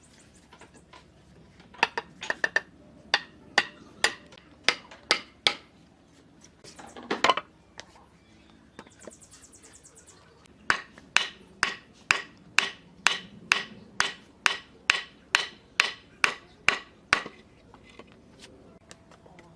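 Hammer blows on wood: sharp knocks, a few scattered at first, then a steady run of about sixteen strikes at roughly two a second that stops a couple of seconds before the end. About seven seconds in there is a single louder, longer clatter.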